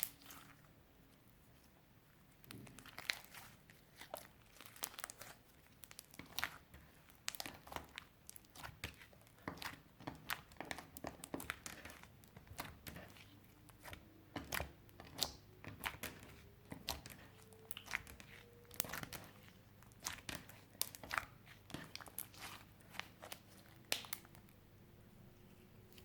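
Clear slime with crushed eyeshadow being kneaded and squeezed by hand, giving irregular sticky pops and crackles, several a second. They begin a couple of seconds in and stop shortly before the end.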